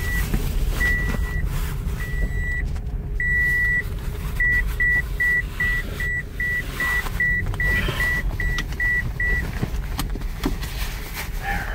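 Car's seatbelt reminder chime nagging the driver: a high steady beep, first four longer beeps about a second apart, then a quicker run of short beeps, about two and a half a second, that stops about nine seconds in. The car's low road and engine rumble runs underneath.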